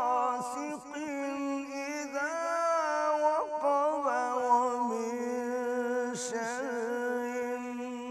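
A man reciting the Quran in a slow, melodic tajweed chant. He holds long drawn-out notes and moves between them with ornamented turns.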